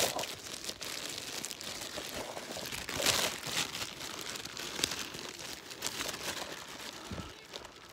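Crinkly rustling and rubbing noises from a phone being handled and moved about, its microphone brushed by fingers or skin, uneven with a louder stretch about three seconds in.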